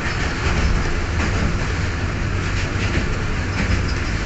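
A passenger train running along the track, heard from inside the carriage: a steady rumble of wheels on rails.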